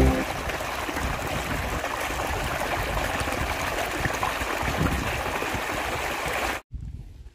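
Water gushing from a pipe into a concrete cattle trough: a steady splashing rush that cuts off suddenly near the end.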